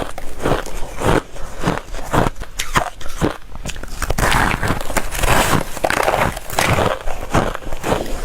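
Soft, dry freezer frost crunching close up as it is bitten and chewed, in a quick, irregular run of crisp crunches.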